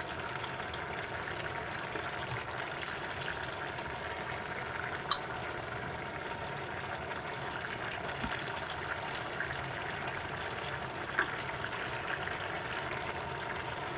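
Pot of pea, potato and carrot stew simmering on an electric hob, a steady bubbling hiss, with a couple of light clicks of a metal spoon against a plate.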